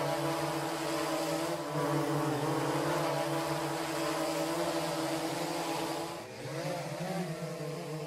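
Quadcopter drone's motors and propellers humming steadily, the pitch wavering slightly; about six seconds in the sound briefly drops and its pitch swells up again.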